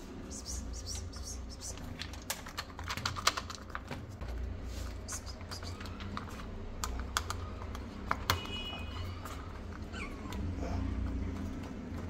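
Irregular clicks and crinkles of a soft plastic pouch of wet kitten food being squeezed out into a plastic bowl, with kittens eating from it. The clicks come thickest about two to three seconds in, with one sharper click about eight seconds in.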